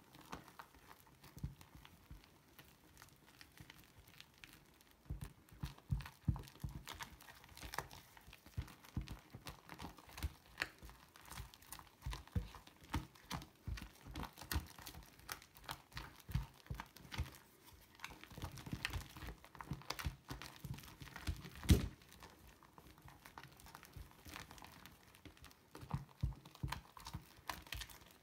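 Fluffy pink slime being stirred and folded in a bowl with a utensil: many small, irregular sticky clicks and pops, with one louder pop about three-quarters of the way through.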